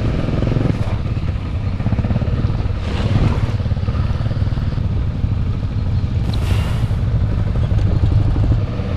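Suzuki V-Strom's V-twin motorcycle engine running steadily as the bike rides over rough ground, with wind noise on the microphone and a brief hiss about six seconds in.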